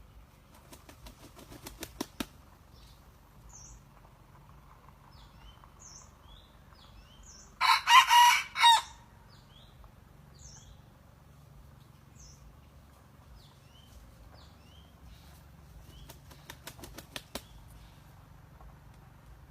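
Red junglefowl rooster flapping its wings in a quick, speeding-up run of claps, then giving one short, loud crow about eight seconds in. Another run of wing claps comes near the end, and small birds chirp faintly throughout.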